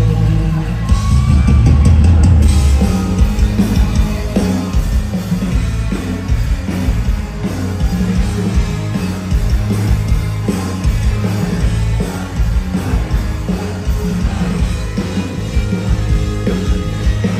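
A live rock band playing loudly through a large PA system: electric guitar, bass guitar and drum kit, with a heavy low end and a louder surge about a second in.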